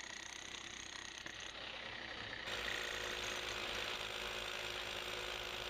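Electric hammer tools working into a concrete foundation wall: chiselling at the concrete, then, from about two and a half seconds in, a rotary hammer drilling anchor holes through a steel pier bracket.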